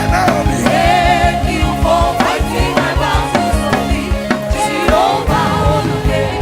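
Live gospel praise music: voices singing with a drum kit and bass-heavy band accompaniment.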